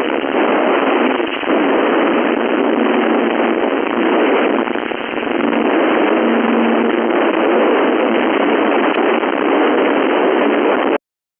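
Radio receiver static on an 11-meter-band FM channel: a loud, steady rush of noise squeezed into the radio's narrow audio range, with a faint low tone coming and going partway through. It cuts out abruptly for a fraction of a second near the end.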